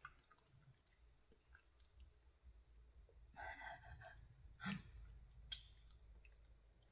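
Faint clicks and handling sounds of fingers picking through a bowl of seafood boil in sauce, with a brief louder sound a little past halfway and a sharp click soon after.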